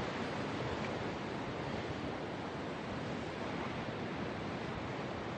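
Sea waves washing on a shore: a steady, even rush of surf with no distinct breaks.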